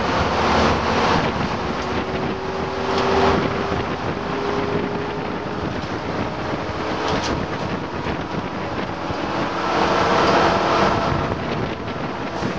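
Leyland Olympian non-air-conditioned double-decker bus running at speed, heard from inside: steady engine and drivetrain noise with a thin whine, and wind rushing in through the open windows, swelling again about ten seconds in.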